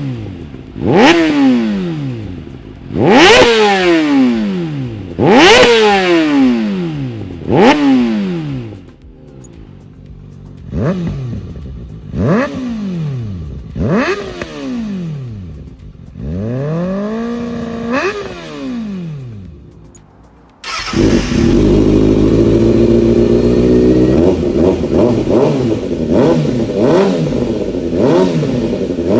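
Kawasaki ZX-10RR inline-four engine revved through its exhaust: four sharp, loud blips about two seconds apart, each falling away quickly, then several smaller revs, one of them held briefly. About two-thirds of the way through the sound cuts abruptly to the engine running steadily and loudly at high revs.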